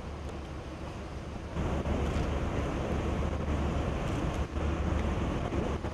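Steady wind noise on the microphone, a low rumble with a hiss over it, growing louder about one and a half seconds in.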